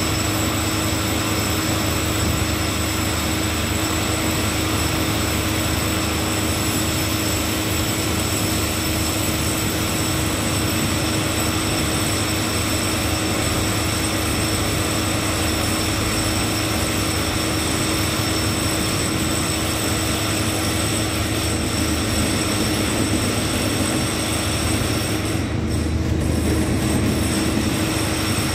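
A cement tank-wagon freight train rolling slowly past, heard under a loud, steady background drone with several steady hums.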